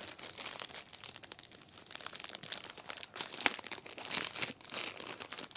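Clear plastic packaging bag of a replacement CPAP filter crinkling and rustling as it is handled, a dense run of irregular crackles.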